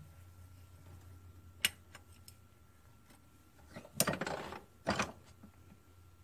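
Small metal governor parts being handled at a workbench vise: a sharp click about a second and a half in, then a scraping metal clatter about four seconds in and a shorter one just after.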